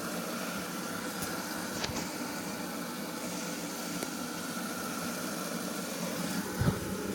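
LG WD-80155NUP front-loading washing machine running steadily at the start of its delicate wash cycle, an even rushing hum, with a brief low thump near the end.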